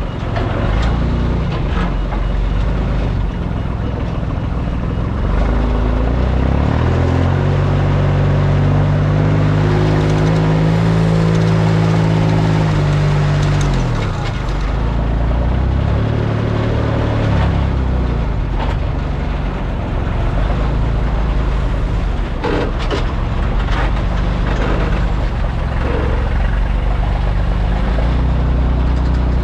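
Delivery truck's engine running on the road, heard from inside the cab. It climbs in pitch about six seconds in as the truck accelerates, holds, then drops back around thirteen seconds and runs on steadily, with a few short knocks later.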